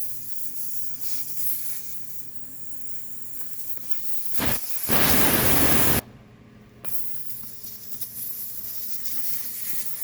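Air hissing out of a car tire through its open valve stem, the valve core unscrewed. A loud rush of air about four and a half seconds in cuts off sharply at about six seconds, then a quieter steady hiss goes on.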